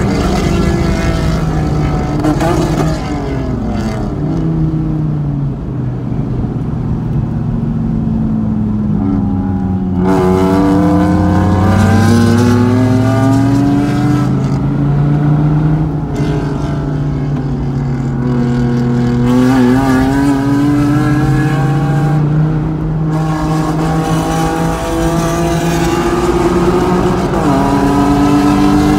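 Dodge Viper's V10 engine heard from inside the car at speed on track, revving hard and dropping back again and again: pitch climbing under acceleration, falling through shifts and braking into corners.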